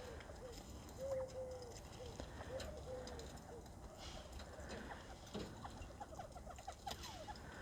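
Northern bobwhite quail giving soft, low calls: several short, level, slightly arched notes in the first few seconds, then a quick run of short rising chirps near the end. Faint clicks sound between the calls.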